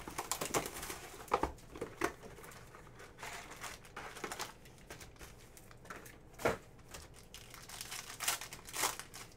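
Trading card pack wrapper being torn open and crinkled by hand, in irregular crackly rustles, with a single sharp knock a little past the middle and a thicker run of crinkling near the end.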